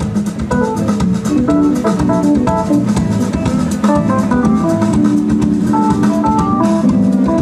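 Live jazz band playing an instrumental passage: acoustic guitar, electric bass and keyboard over a drum kit keeping a steady medium-tempo beat with quick cymbal strokes.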